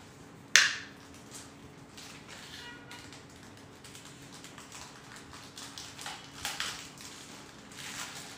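Wax crayon scribbling on paper in short scratchy strokes, with one sharp, loud knock about half a second in.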